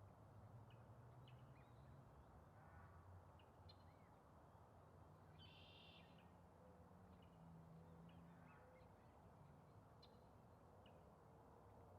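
Near silence with faint bird calls: scattered short, high chirps and a brief buzzy call about halfway through, over a low steady hum.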